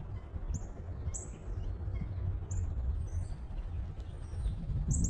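Northern cardinals giving several short, sharp, high chip notes, each dropping slightly in pitch, over a steady low rumble.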